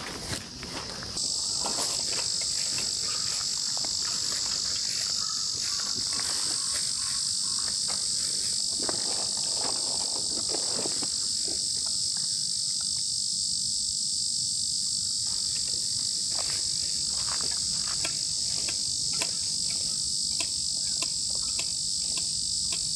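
Steady, high-pitched chorus of summer insects. It starts about a second in, and a second, higher-pitched insect joins at about six seconds. Faint scattered clicks sound throughout.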